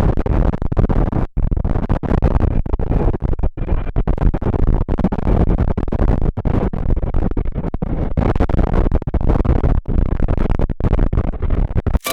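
Strong wind blowing across the microphone, loud and gusty, with many brief dropouts.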